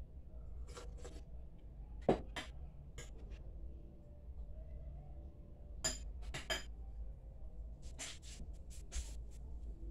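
Scattered light clinks and taps of a utensil against a bowl and plate while strawberries are spooned onto a pancake, coming in small clusters with pauses between.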